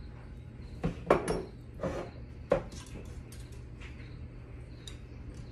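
Milk jars being handled over a stockpot: a handful of sharp knocks and clinks in the first half, then a few lighter ticks as a glass jar's lid is unscrewed.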